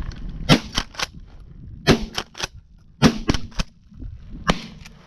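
Shotgun fired at doves four times, about a second apart, each loud crack followed by two fainter cracks.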